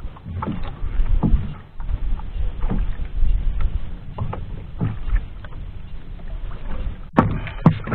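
Water lapping and slapping against the hull of a small outrigger boat, with a low rumble of wind on the microphone. A couple of sharp knocks about seven seconds in.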